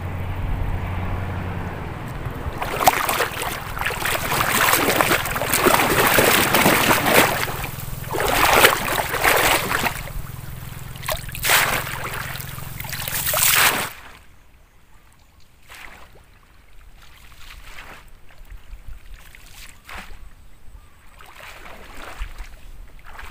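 Shallow muddy water sloshing and splashing in repeated noisy surges as a long-handled wire-mesh leech scoop is pushed through it and a person wades. About 14 seconds in it drops suddenly to a faint outdoor background.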